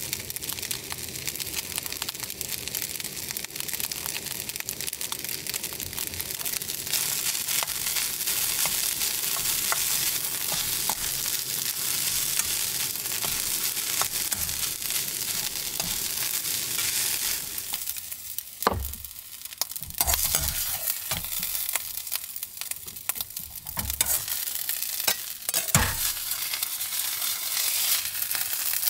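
Fried rice sizzling in a wok on a gas burner while a metal ladle stirs and tosses it. About two-thirds of the way through the sizzle drops and sharp ladle knocks and scrapes take over.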